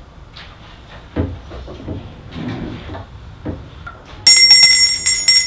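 Soft knocks and shuffling, with a sharper thump about a second in. Then, about four seconds in, a desk service bell is struck rapidly again and again, its rings running together into a loud, continuous ringing.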